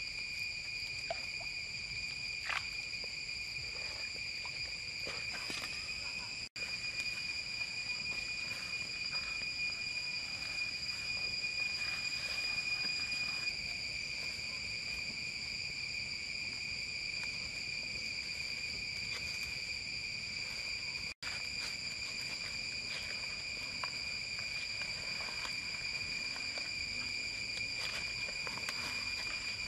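Steady high-pitched drone of forest insects, one unbroken tone with higher overtones, and a few faint clicks and rustles from handling underneath.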